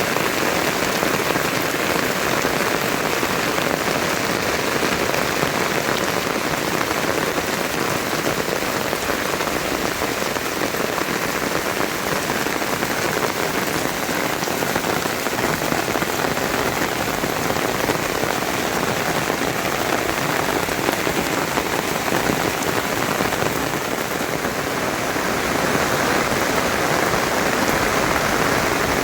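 Steady rain falling, an even hiss of many drops that holds level throughout.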